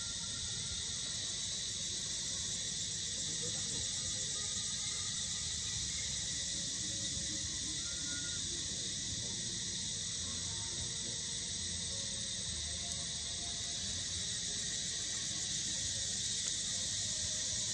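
Steady, high-pitched chorus of insects droning without a break, over a low rumble.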